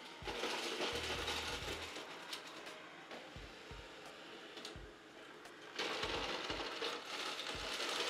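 Narwal Freo X Ultra robot vacuum-mop running, a whirring hiss from its suction and brushes with a few soft low knocks. The hiss eases off about three seconds in and picks up again near six seconds.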